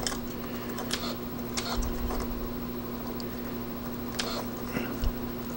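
Faint small clicks and scrapes of plastic parts as fingers pry at a Sony RX100 lens assembly, a few scattered ticks over a steady low hum.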